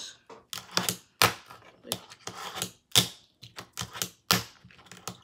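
Fingerboard clacking on a wooden tabletop as it is popped, flipped and lands under the fingers: a quick, irregular run of sharp clacks, about three a second.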